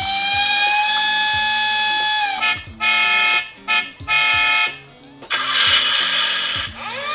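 Toy ambulance's electronic siren: a tone glides up and holds, then cuts in and out in choppy bursts. After a harsh buzzy stretch it falls and rises again near the end. Background music plays underneath.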